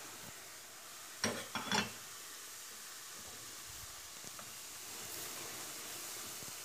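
Umaç crumbs of flour and milk sizzling steadily as they fry in hot butter and oil in a steel pot. A few short clatters about a second in.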